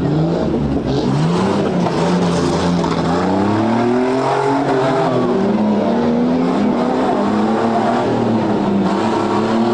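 Off-road competition truck engines revving hard, their pitch rising and falling over and over as the throttle is worked.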